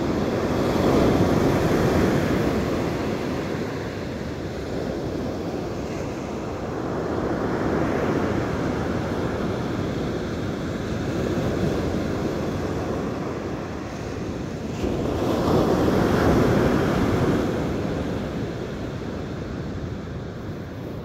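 Ocean surf breaking on a sandy beach, swelling and fading in slow surges as waves come in, with wind buffeting the microphone.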